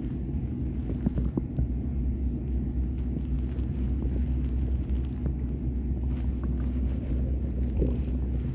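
Stomach growling: a continuous low rumble with scattered small gurgles, and a short gurgle that bends in pitch near the end.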